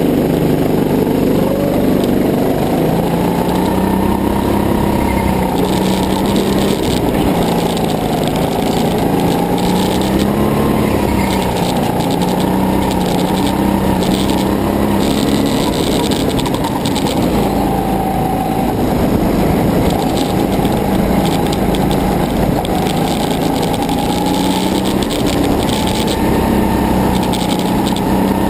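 Go-kart's small engine running hard, heard close up from a camera mounted on the kart. Its pitch rises and falls again and again as the driver speeds up and slows down around the track.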